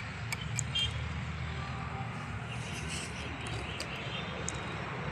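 Steady street background with a low traffic rumble and a few faint ticks.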